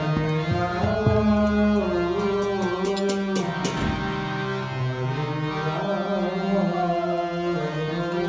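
Harmonium playing sustained reed chords under a man's singing voice in a devotional chant. About two and a half seconds in, a quick run of sharp percussive strikes comes in, ending with a low thump.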